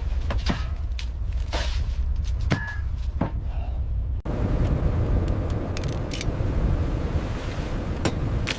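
A crab boat's engine rumbles steadily under scattered sharp knocks and clatter of gear on deck. About four seconds in the sound changes abruptly to a steadier, noisier rumble with only occasional knocks.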